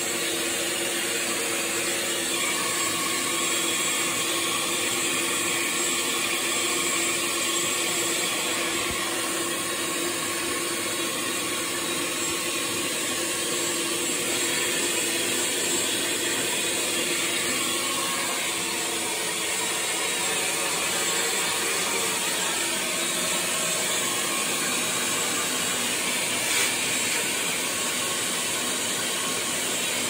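A small motor running steadily and unbroken, a continuous mechanical hum with a hissing edge, with one short knock near the end.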